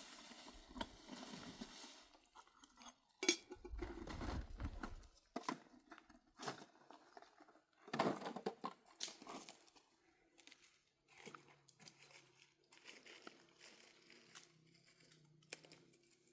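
Faint, irregular rustling and crackling handling noises, with a heavy bump about three seconds in and a sharp knock near eight seconds.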